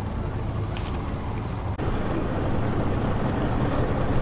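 Steady low rumble of idling boat engines, with wind noise on the microphone. The sound drops out for an instant about two seconds in, then carries on slightly louder.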